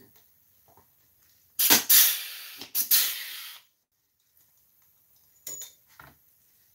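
Pneumatic air drill running in two bursts of about a second each, mostly a loud rush of air that starts and stops abruptly. A couple of light knocks follow near the end.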